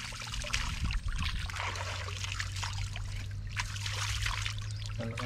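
Shallow stream water splashing and trickling in small irregular bursts as someone wades and works with their hands in it, over a steady low rumble.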